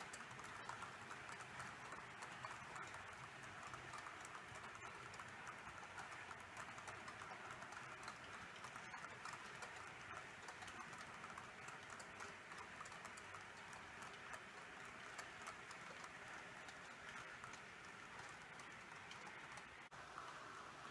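H0-scale model freight train of hopper wagons rolling along the track, its wheels giving a faint, fast, irregular clicking and rattling.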